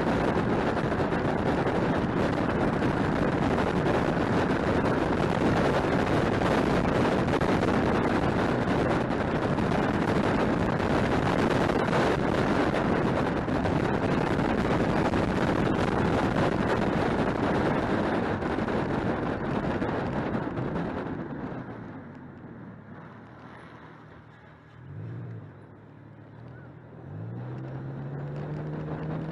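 Car driving at speed, heard from an action camera mounted near a front wheel: a steady rush of wind and tyre noise. About 21 seconds in it fades away as the car slows. In the quieter stretch the engine note rises and falls a few times, and it climbs again near the end as the car speeds up.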